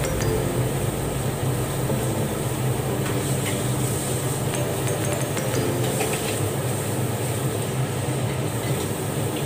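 Food simmering in a covered pan: a steady hiss with a few faint pops, over a low hum.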